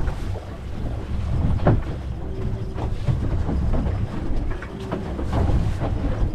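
Wind buffeting the microphone on an open fishing boat: a heavy, uneven low rumble, with a few light knocks on the boat.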